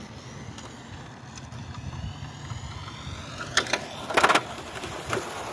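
Brushed electric motor of an HSP Flying Fish RC touring car whining and slowing in pitch as the car drives off across asphalt, over a low steady rumble. A few short, loud scuffing bursts come about three and a half to four and a half seconds in, and once more near the end.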